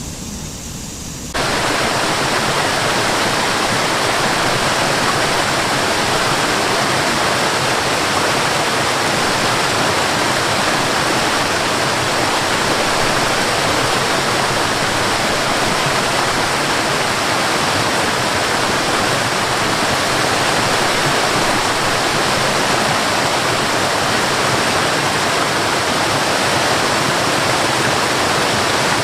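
River water rushing over a waterfall, a loud, steady roar of falling and splashing water. It cuts in abruptly about a second in, replacing a quieter, lower rumble.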